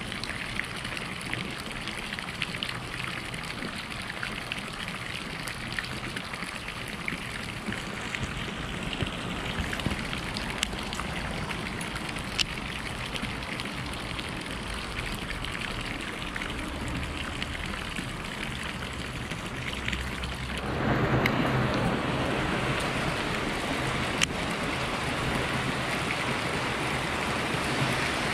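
Steady patter of light rain on water, mixed with water trickling from a drain pipe, with a few small sharp ticks. About 21 s in, the sound suddenly turns louder and fuller.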